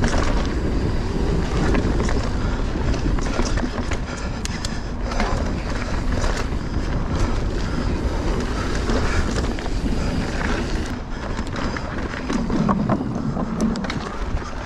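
Mountain bike ridden fast over rough singletrack: a steady rumble of tyres on the trail, with frequent clicks and clatters as the bike rattles over bumps, and wind on the microphone.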